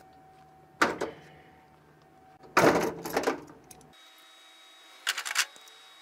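Three short bursts of handling noise from hand tools and wire, brief clicks and scrapes, with the longest in the middle.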